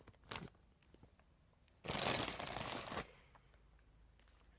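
Fan packaging being handled: a few light clicks, then a rustle of crinkling packing material lasting about a second.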